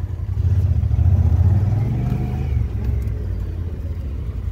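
Honda Pioneer 1000-5 side-by-side's parallel-twin engine under hard acceleration, heard from on board the machine. The engine grows louder about half a second in and eases off a little after a couple of seconds.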